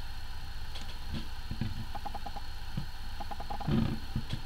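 Steady low background hum, with a few faint ticks and soft knocks as a hand moves a horse figurine on a desk.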